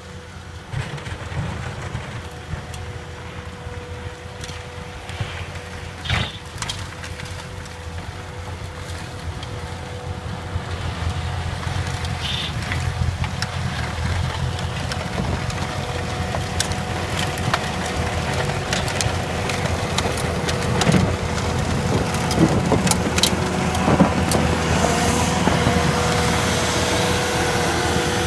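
CAT 259D compact track loader's diesel engine running steadily under load while it drives a hydraulic snowblower attachment through snow, with a steady whine and scattered sharp clicks. It grows steadily louder as the machine approaches.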